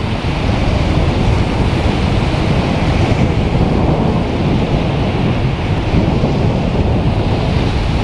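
Steady rush of wind on the microphone mixed with the churning wash of a fast-moving grey warship's bow wave.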